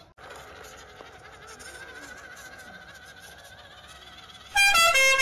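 A faint, steady, wavering whine, then, about four and a half seconds in, loud music of stepped horn-like notes starts suddenly.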